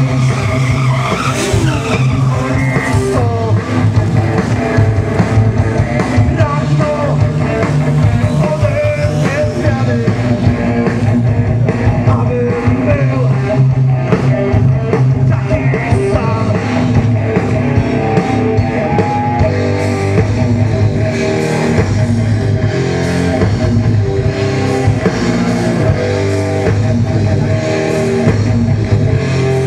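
Hard rock music with singing and electric guitar, playing loudly and steadily with a regular beat.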